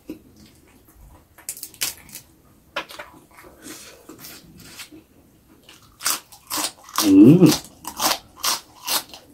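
Close-up crunchy biting and chewing, scattered at first and then dense and loud over the last three seconds as a raw vegetable is bitten. A short hummed sound rises and falls about seven seconds in.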